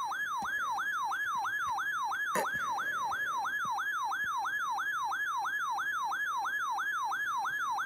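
RadioShack 12-996 weather alert radio sounding its electronic alarm siren, set off by a received fire warning alert: a fast, repeating up-and-down wail at about three to four sweeps a second, with one click about two and a half seconds in.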